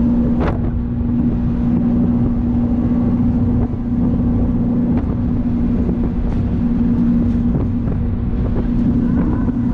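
Jet boat's twin 496-cubic-inch V8 engines running steadily at speed, a constant drone. Wind rushes over the microphone.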